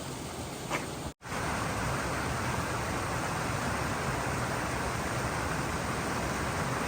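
Gorge waterfall rushing steadily, an even noise of falling water. It breaks off for an instant about a second in and comes back a little louder.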